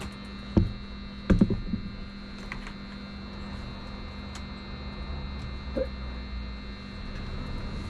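Steady electrical hum, with a few short knocks: one early, a quick cluster of three or four about a second and a half in, and a faint one near the end.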